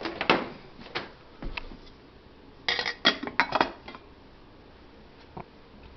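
Clinks and clatter of metal kitchenware being handled: a few separate knocks, then a short burst of rattling about three seconds in.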